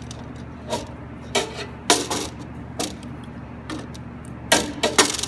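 Adjustable wrench clinking and scraping against the steel nut and fittings of a solenoid valve as it is fitted and turned: a scatter of sharp metallic clicks, the loudest cluster near the end.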